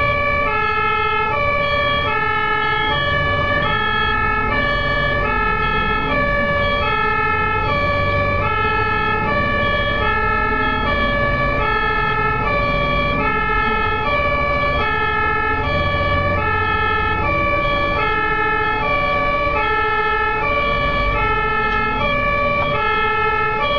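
Ambulance two-tone siren switching steadily between a high and a low note, each held about half a second, over low engine and road rumble.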